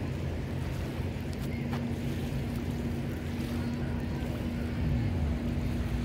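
A steady engine hum under a constant rushing noise, with a low tone sliding down about four seconds in.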